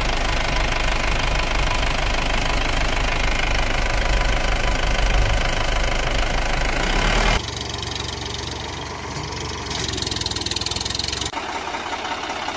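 Vehicle engine running with a rapid knocking pulse. The sound cuts abruptly about seven seconds in to a quieter engine sound, and changes again near the end.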